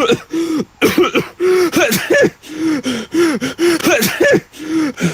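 A person coughing and clearing their throat over and over in short voiced bursts, about two a second, a bothersome flu cough.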